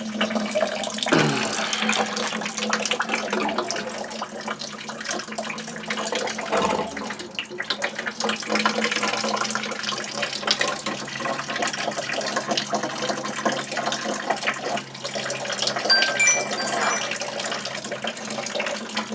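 Water running and splashing as it drains out of an old gas boiler, continuous with an uneven rush, over a steady low hum.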